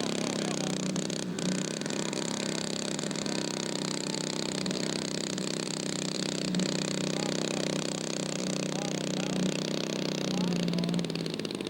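Radio-controlled model aircraft engine running at a steady speed.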